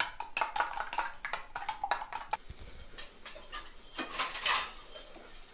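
Rapid clinks of metal utensils against steel kitchenware for the first couple of seconds. About four seconds in comes a short scrape as a wooden spatula stirs potato fries in a frying pan.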